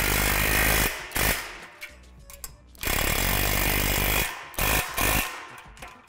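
Cordless impact driver with a socket running bolts into a steel frame, in two bursts of about a second and a half each and a shorter third burst near the end.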